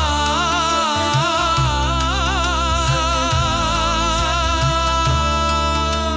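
Devotional Sikh kirtan music. A melody line wavers through ornamented turns for the first three seconds or so, then holds one long steady note, over a continuous low accompaniment.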